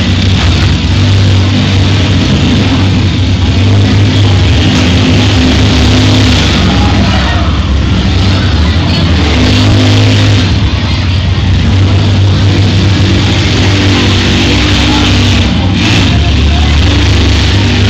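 Several minivan engines running hard and accelerating as the derby vans drive and push each other across the arena. Loud, with engine notes coming and going over a dense din.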